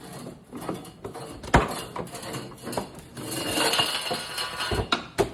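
Steel hoops being worked off a bourbon barrel: two sharp metallic knocks, one about a second and a half in and one near the end, with a stretch of scraping and rattling between them.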